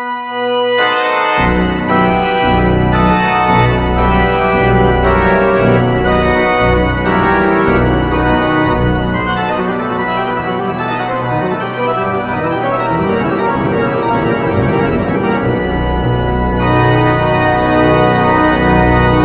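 Instrumental background music with sustained organ-like keyboard chords; a bass line comes in about a second in.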